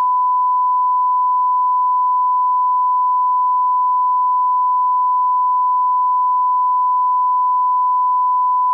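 1 kHz line-up reference tone, the kind laid under colour bars for setting audio levels: one steady pure pitch, unbroken.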